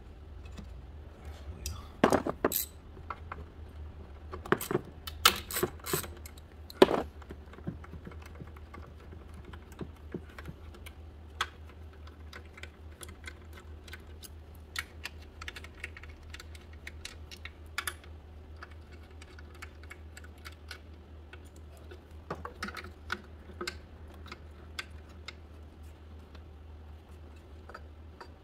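Irregular clicks, knocks and light clatter of hands working on parts in a car's engine bay, in scattered clusters, over a steady low hum.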